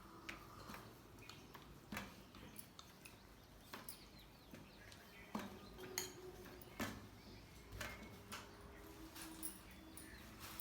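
Faint, scattered clicks and light knocks of kitchenware being handled, about a dozen irregular taps over a quiet room background.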